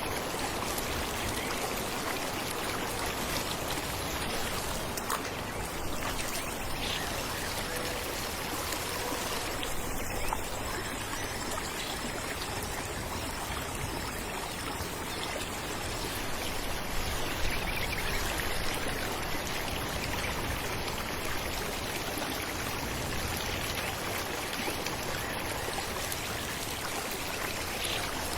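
Falling water rushing steadily, an even wash of sound with a few brief louder moments.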